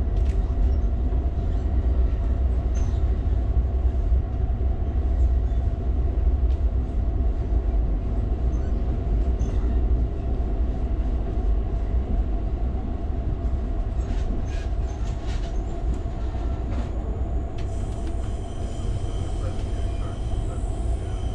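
Inside an Amtrak passenger car riding on the rails: a steady low rumble with a constant hum and scattered light clicks. A high, thin squeal joins about eighteen seconds in.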